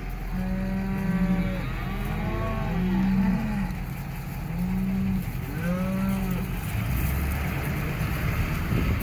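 Cattle mooing: about five long, drawn-out moos from several cows, some overlapping, over the first six seconds or so. A vehicle's engine runs steadily underneath.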